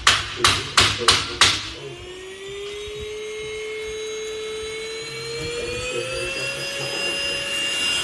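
Handheld dust-mite vacuum cleaner's motor whining steadily, its pitch rising slowly as it spins up. About five sharp knocks come first, within the first second and a half.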